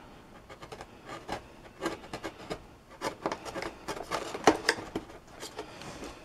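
Hobby knife trimming the foam inside an RC plane's fuselage, shaving a cut edge flush. It makes a run of short, irregular cutting strokes.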